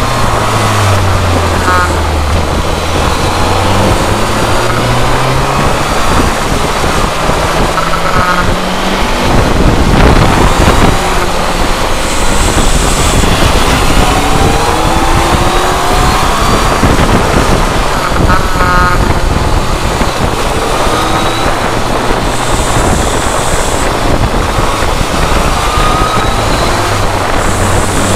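Inline-four sport motorcycle engine running on the move, its pitch climbing as it accelerates and falling back between gears, under a constant rush of wind over the on-board camera.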